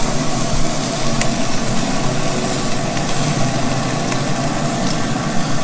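Tri-tip roast searing on a sear grate over hot charcoal in a Weber kettle grill: a steady, loud sizzle with a few faint pops.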